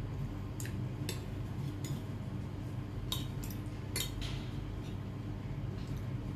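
Metal spoon and fork clicking against a plate and bowl while someone eats. There are about half a dozen light clicks, the sharpest about three and four seconds in, over a steady low hum.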